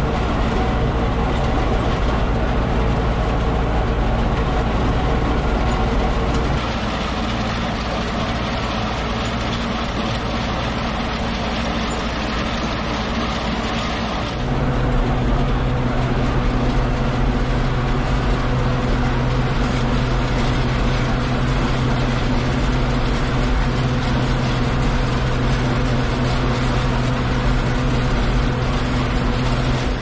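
Ford 7710 tractor engine running steadily under way, heard from inside the cab. The engine note shifts abruptly about six and fourteen seconds in.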